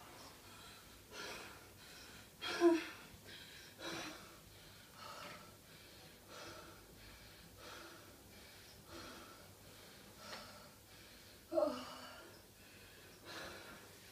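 A woman breathing hard and heavily, out of breath and exhausted after seated chair exercise. The loud breaths come about every second and a half, and two louder breaths with some voice in them fall about three seconds in and near twelve seconds in.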